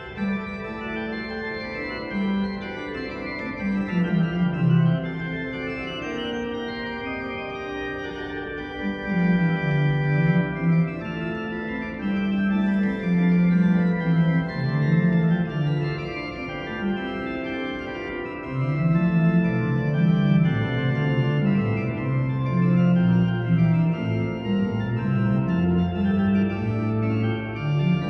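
Juget-Sinclair continuo organ, a small pipe organ, playing a piece of sustained chords over a bass line that moves in steps.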